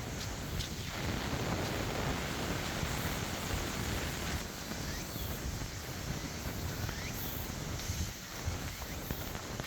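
Wind buffeting the microphone in uneven low gusts over a steady hiss of rain.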